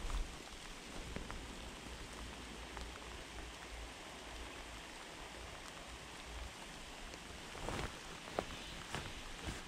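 Light rain pattering, with scattered drop ticks over a steady hiss. A low rumble runs through the first six seconds or so, there is a thump right at the start, and near the end a short rushing swell and a sharp click.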